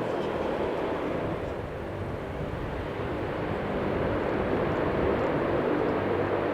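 Tupolev Tu-95MS bomber in flight, its turboprop engines and propellers making a steady low drone with a faint hum in it, growing slightly louder near the end.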